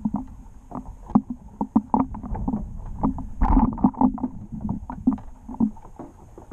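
Water slapping against a small boat's hull, with wind rumbling on the microphone and irregular knocks, a few a second; one louder knock comes about three and a half seconds in.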